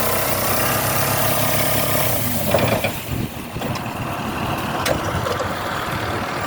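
Tractor engine running steadily, then changing to a rougher, noisier sound about two and a half seconds in, with a few sharp knocks after.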